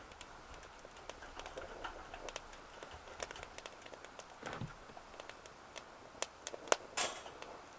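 Twigs and wood burning in a BioLite Basecamp biomass stove's firebox, crackling with scattered small snaps and pops. A soft thump comes about four and a half seconds in.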